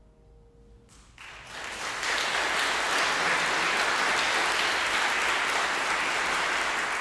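The last piano chord dies away, then an audience breaks into applause about a second in, building quickly and holding steady.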